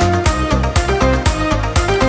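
Background music with a steady electronic beat and bass.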